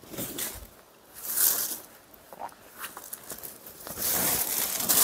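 Silk saree fabric rustling and swishing as it is unfolded and lifted by hand, a swish about a second in and a longer, louder one from about four seconds in.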